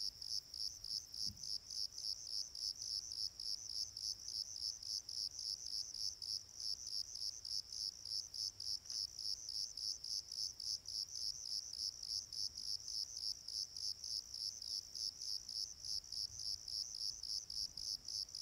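Cricket chirping steadily, a high-pitched chirp repeating about three times a second.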